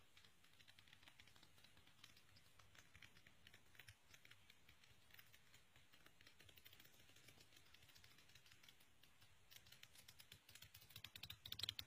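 Pages of a paperback exam-prep book flipped rapidly under a thumb, flipbook-style: a faint, fast run of papery ticks that grows louder in the last second or so.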